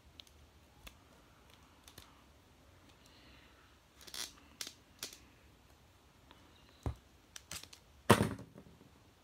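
Hands handling plastic action figures: scattered small clicks and rustles, then a louder knock with a short tail near the end as a plastic toy battle axe is set down on the table.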